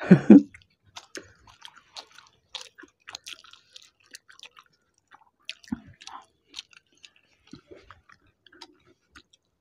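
Close-miked chewing and small wet mouth clicks as two people eat rice and steamed hilsa fish by hand. A short voice sound comes at the very start.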